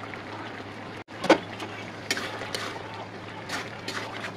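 A spatula stirring and scraping chunky potato curry in an aluminium kadai, knocking on the pan's side in several sharp clanks, the loudest about a second in. A low steady sizzle of the simmering pan runs underneath.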